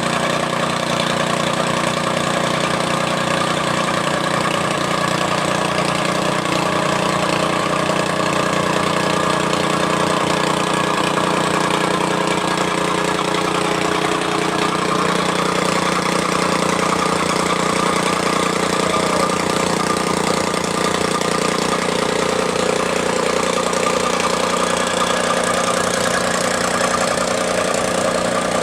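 Tamping rammer ('stamper kuda') running steadily, its small engine driving the foot up and down to compact fill soil.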